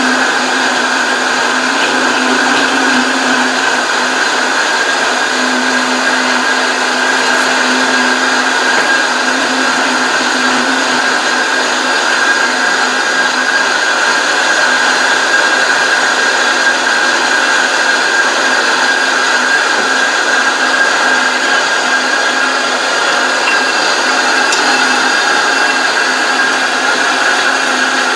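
Countertop blender running steadily at speed, pureeing whole onions, lemons and garlic with water: a continuous motor whine over the churning of the mix, with no break.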